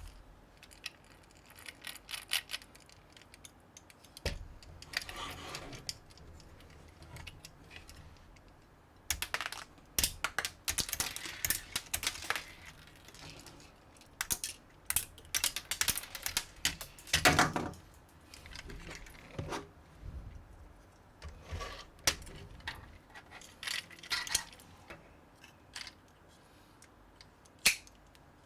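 Plastic building bricks being handled and snapped together: irregular sharp clicks with short bursts of rattling, busiest in the middle.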